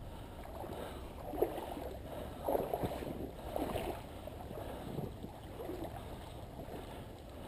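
Shallow stream water sloshing and splashing in irregular bursts over a steady trickle.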